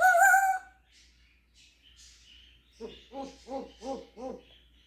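African grey parrot calling: a loud, short pitched call right at the start, then, about three seconds in, a run of five short low notes, about three a second.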